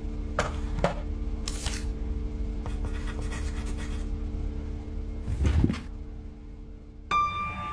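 Cartoon foley over a steady low hum: two quick clicks, then pen scratching on paper in short bursts, a heavy low thud about five and a half seconds in, and a sudden bright ringing tone near the end.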